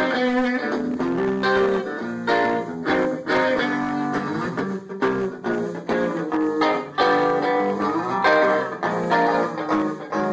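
Gretsch Pro Jet electric guitar played through an Orange Tiny Terror tube combo amp with a crunchy rockabilly overdrive and Boss RE-20 slapback echo, picking plucked licks with a few bent notes.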